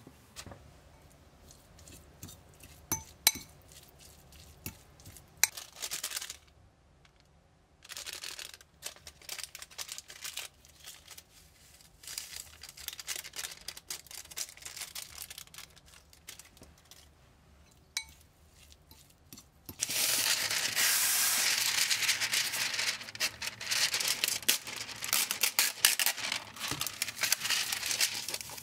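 A metal fork clinking and scraping against a ceramic bowl as boiled eggs are mashed with mayonnaise, with a few sharp clinks in the first six seconds. About twenty seconds in, a louder stretch of paper crinkling and rustling begins as a sheet of baking paper is handled.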